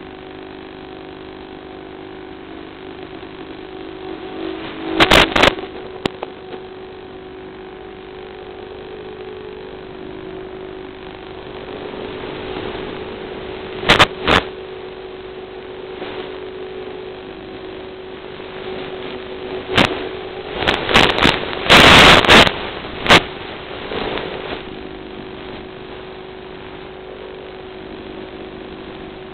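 Electric motors and propellers of a small FPV aircraft running with a steady hum through its onboard camera microphone, broken by several sudden loud rushing bursts about a fifth of the way in, again around the middle, and in a cluster about three-quarters through.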